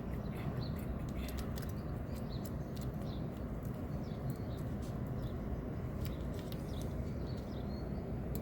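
Light clicks of a key being worked in a 2016 Honda Accord door lock cylinder fitted with new wafers, as the cylinder is tested with the original key, over a steady low rumble. Small birds chirp faintly now and then.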